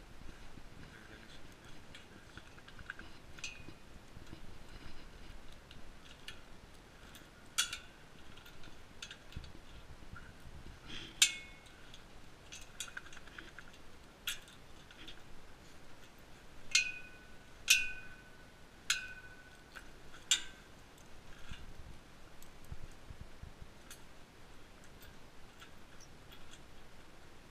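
Wrought-iron gate being handled, giving sharp metallic clinks and taps, several of them ringing briefly; about a dozen, scattered and uneven, the loudest a run of four close together about two-thirds of the way through.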